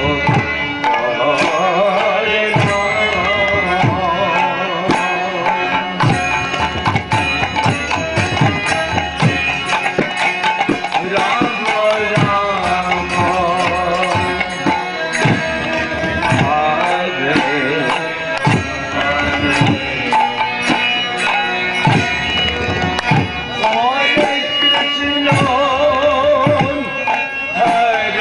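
Devotional kirtan music: a hand drum played with sliding bass strokes, small hand cymbals striking throughout, and a wavering melody over them.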